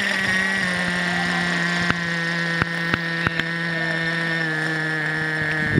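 Radio-controlled model helicopter's motor and rotor running with a steady whine, the pitch easing slowly downward. A few sharp clicks come in the middle.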